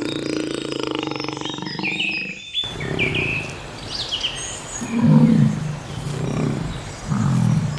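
A large animal's low calls: a long held call, then after a cut, three short low grunts about a second apart. Birds chirp throughout.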